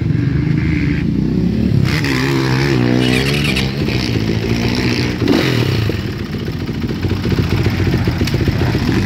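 Yamaha YZ450F's single-cylinder four-stroke engine idling, revved up and back down about two seconds in and blipped briefly again around five seconds. The engine is running with no oil in it, after having seized and freed up.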